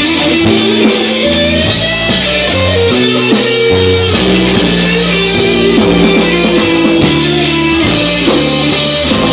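Live rock band playing loudly, electric guitars to the fore over a moving bass line.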